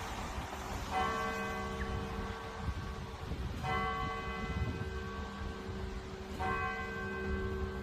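Clock-tower bell striking slowly, three strokes about two and a half seconds apart, each of the same pitch and ringing on until the next.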